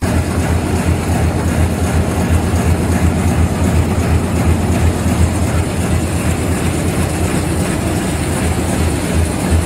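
Automatic thread book sewing machine running: a loud, steady mechanical running noise with a strong low hum underneath.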